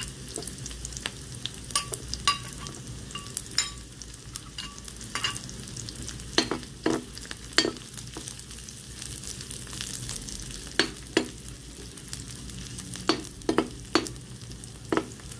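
Chopped onion and garlic sizzling steadily in hot oil in a frying pan, with a metal ladle clicking and scraping against the pan as they are stirred, in short clusters of knocks.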